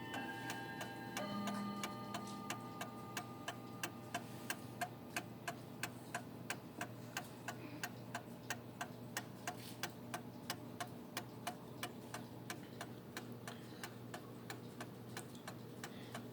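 Seth Thomas Adamantine mantel clock movement ticking: its escapement beats an even tick-tock, about three beats a second.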